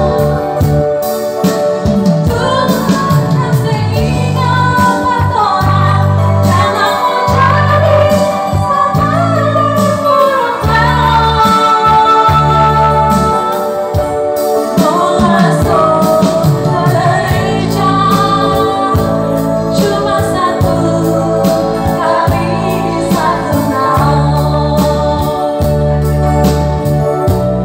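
A woman singing into a microphone through a sound system, accompanied live on an electronic arranger keyboard playing a steady bass line and organ-like chords.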